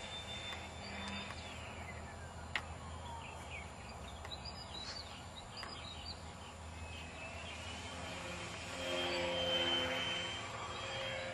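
Model airplane's motor whining overhead: the high whine drops in pitch a couple of seconds in, then climbs back and is loudest near the end as the plane comes close again.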